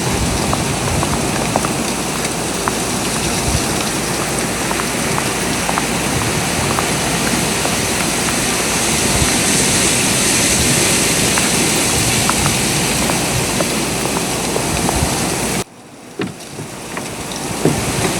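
Blizzard wind blowing hard, a loud steady rush with scattered small ticks, cutting off suddenly near the end before building back up.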